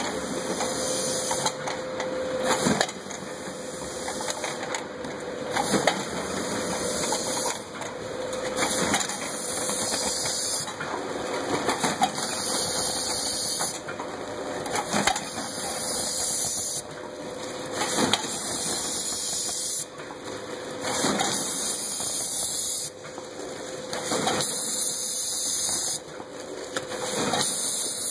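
Tomato weighing and bagging machinery running: a NEWTEC multihead weigher and an H-Tech bag-on-roll heat-seal bagger. A loud hiss breaks off briefly every three seconds or so, with scattered clicks and knocks and a faint steady hum.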